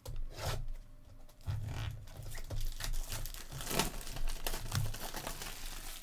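Crinkling and tearing of trading-card pack wrappers as packs are opened and handled, an irregular rustle with short sharp crackles.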